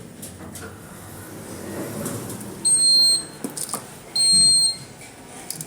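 Two loud, steady, high electronic beeps from an Orona passenger lift, each about half a second long and about a second and a half apart.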